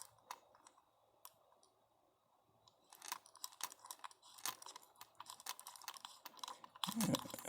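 Pocket watch crown being turned by the fingers to move the hands: a few scattered faint clicks, then from about three seconds in a dense run of small clicks and crackles.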